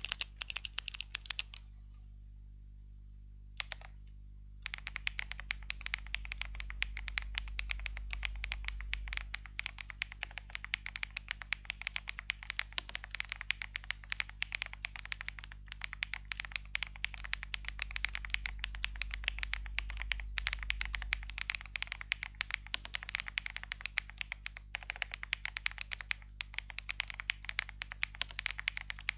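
Fast, continuous typing on an Ajazz 820 Max mechanical keyboard with stock Gift switches: a creamy clatter of keystrokes. A few isolated key clicks and a short pause come first, then dense typing starts about five seconds in, broken only by brief pauses.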